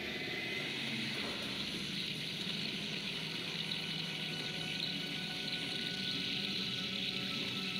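Steady rushing hiss from a TV episode's soundtrack, with faint steady tones and a low hum beneath it.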